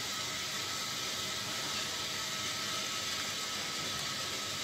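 Steady hiss of a thin curry broth of drumsticks and potatoes simmering in a nonstick pan, freshly topped up with hot water.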